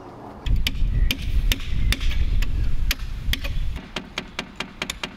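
Rapid series of sharp knocks on wood, several a second, as an old window is tapped loose from its frame in a brick wall. A loud low rumble runs under the knocks for the first three seconds or so.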